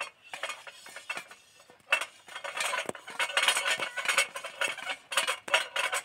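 Irregular metallic clinking and clattering: many quick knocks and clinks of metal fittings and tools being worked on a borewell pipe. It starts suddenly and grows denser from about two seconds in.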